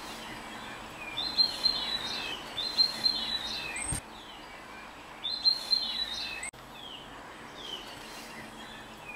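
Small birds singing over a steady background hiss, in repeated high warbling phrases about a second long, three of them louder than the rest. The background level drops suddenly about four seconds in and cuts out for an instant later on.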